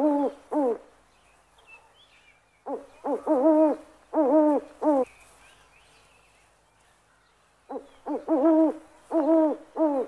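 An owl hooting in bouts of four or five hoots, each hoot sliding up and then down in pitch. One bout ends just after the start, another comes about three seconds in, and a third near the end, with quieter gaps between.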